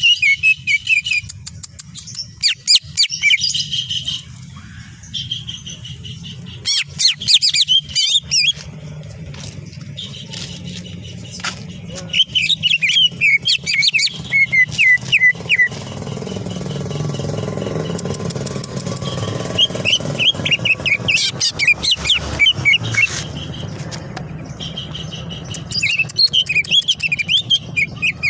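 Greater green leafbird (cucak ijo) singing in about six bursts of rapid, high, chattering notes, each one to four seconds long, over a steady low hum.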